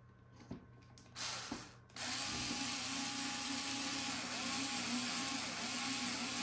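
Small cordless electric screwdriver driving a screw: a short burst about a second in, then steady running from about two seconds on.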